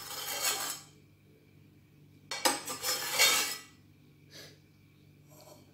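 A spoon scraping and clinking on dishware as sauce is spread over a plate of spaghetti. It comes in two bursts: a short one at the start and a longer one about two and a half seconds in.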